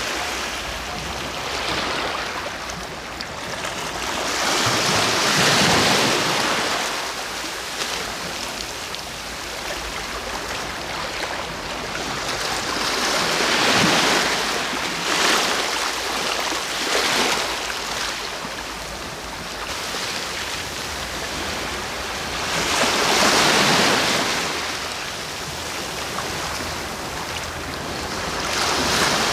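Sea waves breaking and washing up the shore. Each surge swells and fades, with the louder ones coming every eight to ten seconds over a steady wash of surf.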